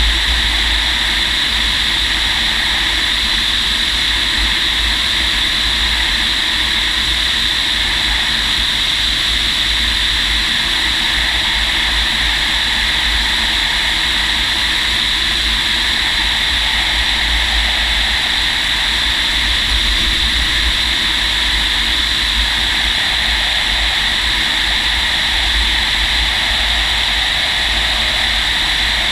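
Steady rush of airflow and low rumble in the cockpit of an MDM-1 Fox glider flying on aerotow, holding an even level throughout.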